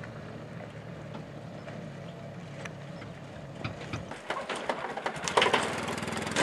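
Six-wheeled Polaris ATV engine running. From about four seconds in, a quickening run of metallic rattles and clanks builds to a loud clatter, and the engine grows louder near the end.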